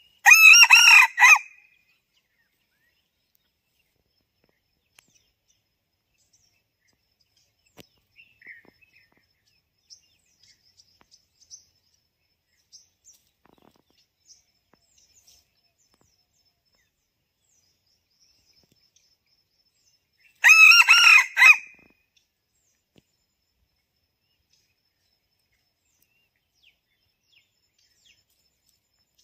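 Red junglefowl rooster crowing twice, about twenty seconds apart, each crow short at about a second and a half. Faint small-bird chirps come in between.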